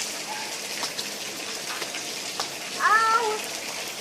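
Steady rain falling, with scattered drips. About three seconds in, a single short high call that rises and falls in pitch stands out over the rain as the loudest sound.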